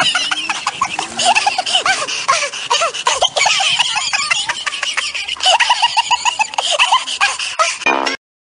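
Hearty, high-pitched laughter in long runs of quick repeated 'ha-ha' syllables over a steady hiss; it cuts off abruptly near the end.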